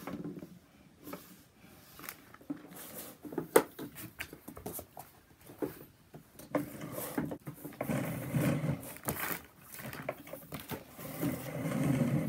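Plastic clicks and knocks from handling a Hozelock 2-in-1 compact hose reel. From about six and a half seconds in they give way to a continuous plastic rattle as the reel's hub is turned by hand.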